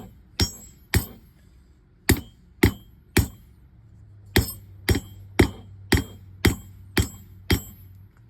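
Hand hammer striking hot 1/4-inch square steel bar stock on an anvil, each blow with a bright metallic ring, in runs of three, three and then seven at about two blows a second: drawing out a taper to bring the end of the bar to a point.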